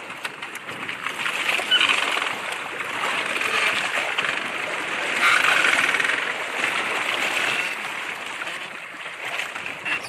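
Sea water splashing and sloshing around a bamboo raft, rising and falling in swells, with scattered small knocks.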